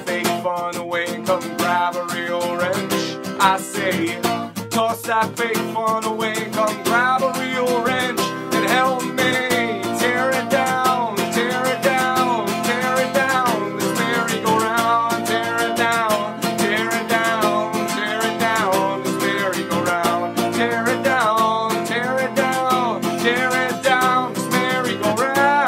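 A man singing to his own strummed acoustic guitar, with quick, even strums under a sung melody.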